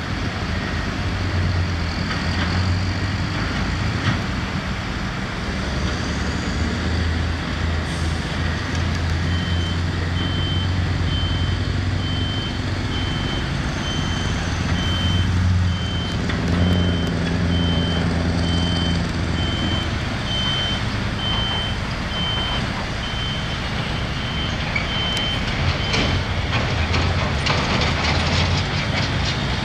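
Heavy diesel machinery working, with a steady engine drone. A reversing alarm beeps at one pitch about once every three-quarters of a second, from about nine seconds in until a few seconds before the end. Scattered clattering comes in the last few seconds.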